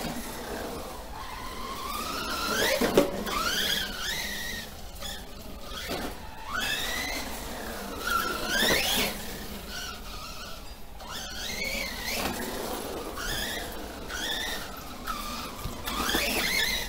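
Brushless motor and drivetrain of a Remo Hobby Dinosaurs Master 5 RC monster truck, run on a 3S battery, whining as it is driven, the pitch rising and falling again and again with the throttle. Short knocks of the truck on the ground come now and then.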